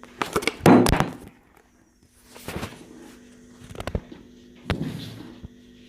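A utensil knocking and scraping against a mixing bowl while flour is folded into a cake batter: a loud clatter about a second in, then three shorter knocks.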